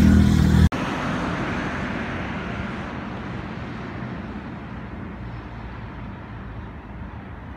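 A bus driving past on the road, its engine and tyre noise fading steadily as it moves away. It is preceded by a loud, low engine drone that cuts off abruptly under a second in.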